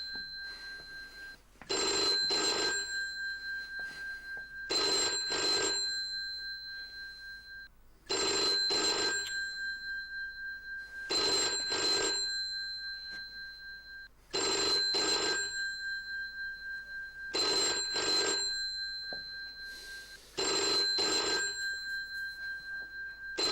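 Telephone ringing repeatedly, unanswered: seven rings about three seconds apart, each starting sharply and fading away before the next.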